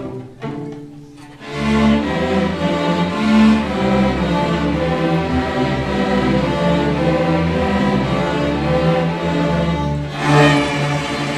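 School string orchestra of violins, cellos and double basses playing. A few short, separated notes give way about a second and a half in to full, sustained bowed playing, with a louder accent near the end.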